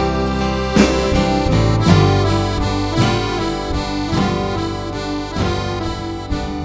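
Live band playing an instrumental passage: accordion carrying the melody over drums, bass and guitar, with drum strikes about once a second.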